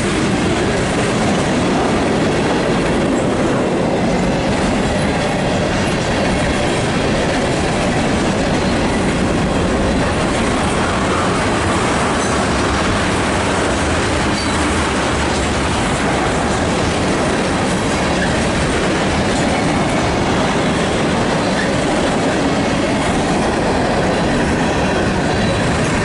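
Freight train cars rolling past close by: a loud, steady running noise of steel wheels on the rails that does not let up.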